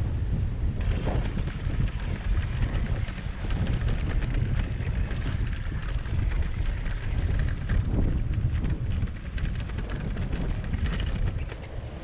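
Wind buffeting the microphone in a loud, gusting rumble, with a crackly hiss over it from about a second in.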